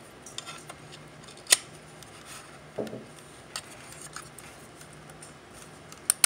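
Scattered light clicks and taps of a plastic electronics housing and circuit board being handled and turned over on a table, the sharpest click about a second and a half in and a duller knock near the middle.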